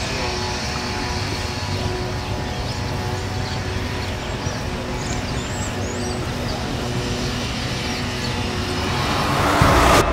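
Steady traffic noise of a city street, swelling louder near the end.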